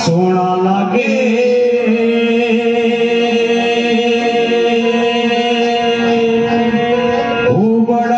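Devotional song: a voice holds one long chanted note for about six seconds over the musical backing, the note breaking off near the end.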